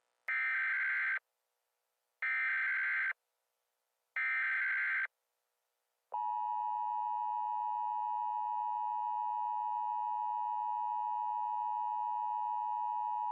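Emergency Alert System tones: three short bursts of SAME header data tones, then, about six seconds in, the steady two-tone EAS attention signal, which announces an emergency alert.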